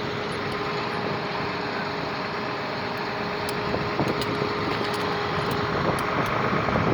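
A vehicle engine running steadily, with a constant whine over dense rumbling noise, growing a little louder near the end.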